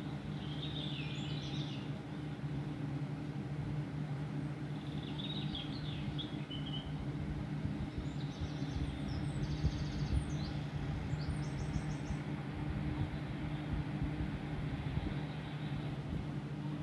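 A steady low hum with a few short bird chirps over it: bursts about a second in, around five to seven seconds in, and a longer run between about eight and twelve seconds.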